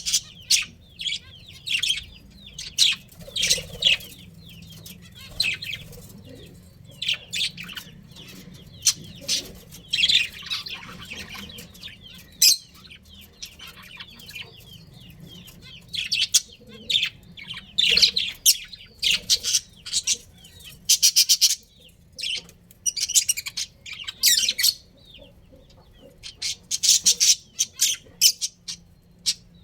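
Budgerigars chirping and chattering: short bright chirps and quick runs of clicky notes, coming in clusters with short pauses between.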